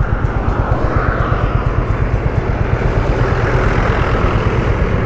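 Motorcycle engine running with a rapid, even pulsing beat under wind and road noise as the bike pulls away from the roadside onto the highway.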